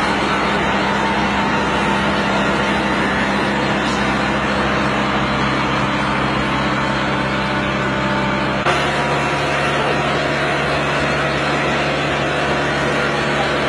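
Daikon radish harvesting machine running steadily: a constant engine note under the noise of its lifting belts and conveyor. About nine seconds in, the engine note shifts abruptly to a slightly lower pitch.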